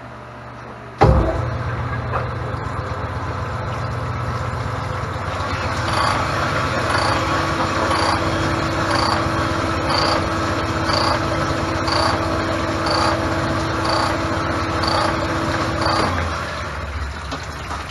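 Machine-shop cylinder machine (boring or honing rig) working a golf cart engine cylinder. Its motor starts abruptly about a second in and runs steadily, with a regular stroke-like pulse about once a second from roughly six seconds. It winds down near the end.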